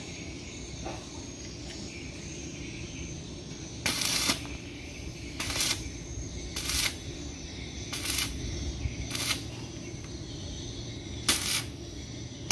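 Stick welding on a square steel tube frame: the arc crackles in about six short bursts, each under half a second, as the welder strikes and breaks the arc at the joint. A steady low hum runs underneath.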